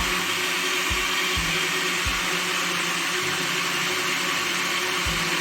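Electric blender running steadily at full speed, blending a liquid lemon-and-banana cherbat drink.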